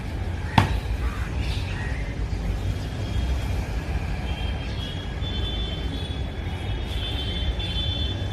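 A single sharp boot stamp on paving about half a second in, over a steady low rumble. Faint high steady tones come in during the second half.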